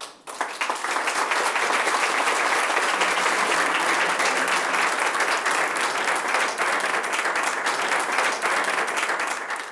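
A standing audience applauding: a dense, steady round of many hands clapping that starts suddenly about half a second in.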